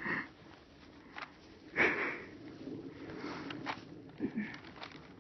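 A person breathing, with one loud breath about two seconds in, over footsteps crunching up a snowy slope.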